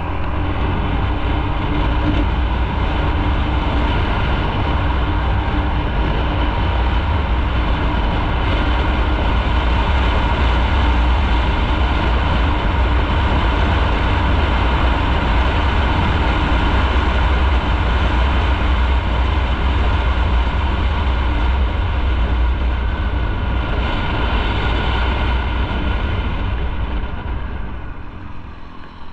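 Motorcycle being ridden at a steady speed: a low engine hum under heavy wind and road noise on the onboard microphone. The noise falls away near the end.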